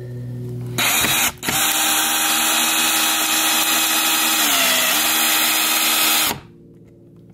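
Power drill driving a screw: a short run about a second in, then a steady run of about five seconds whose pitch dips briefly under load near the end before it stops.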